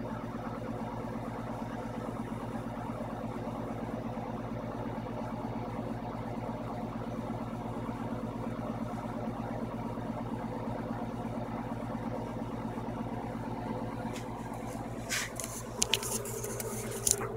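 Steady low motor hum, even in level throughout. A few short clicks and rustles come near the end.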